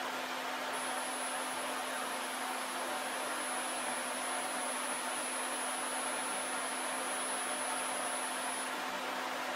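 Steady hiss with a constant low hum from an electric tire inspection spreader running while it rotates a tire.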